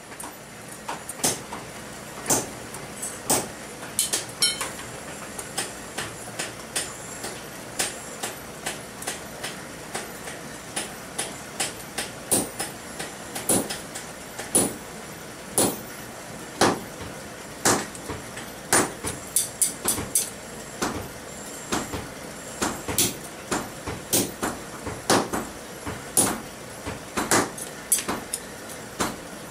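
Hand-hammer blows on a steel punch set in a red-hot ball peen hammer head on an anvil, hot-punching the handle eye. Sharp metallic strikes come about one to two a second, unevenly spaced, some in quick pairs.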